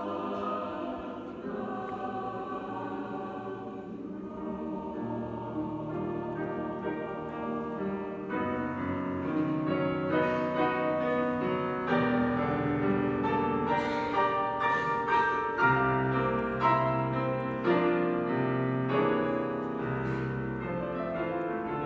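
A large choir singing a slow piece with long held chords, growing fuller and louder about eight seconds in as low voices join.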